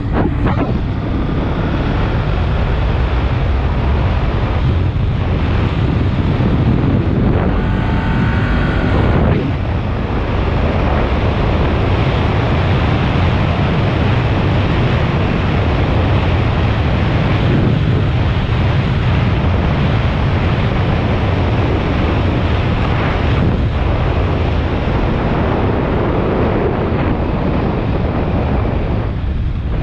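Steady wind rushing and buffeting over a helmet chin-mounted camera while riding a Kawasaki Ninja 400 at speed, with the bike's parallel-twin engine running underneath. About eight seconds in, a rising engine note comes through briefly.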